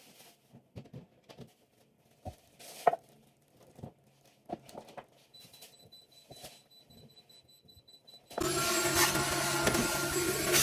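Scattered light clicks and knocks of things being handled in a fridge, then about eight seconds in a loud, steady whirring hum from a small electric motor starts suddenly, like a handheld vacuum or similar appliance.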